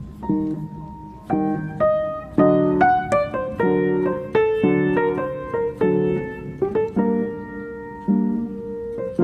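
Background piano music: a gentle melody of single notes over soft chords, each note struck and left ringing.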